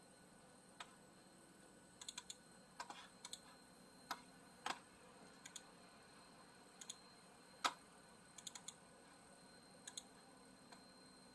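Sparse clicks of computer keyboard keys and mouse buttons, singly and in quick runs of two or three, at a low level.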